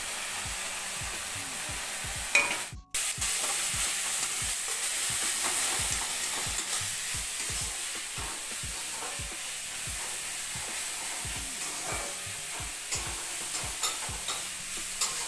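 Small dried shrimp sizzling in hot oil in an iron kadai, with a metal spatula scraping and tapping against the pan as they are stirred. The sound cuts out for an instant just before three seconds in.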